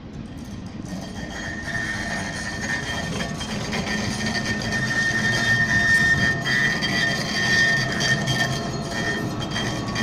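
Electric street tram passing close by on its rails: a rumble that grows louder from about a second in and peaks around the middle, with a steady high whine through most of the pass.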